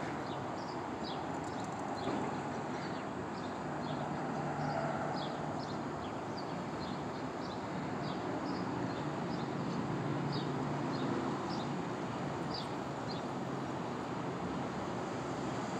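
Steady hum of street traffic with many short, high bird chirps scattered throughout.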